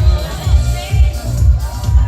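Music with a heavy bass beat pulsing steadily, with a melody line above it.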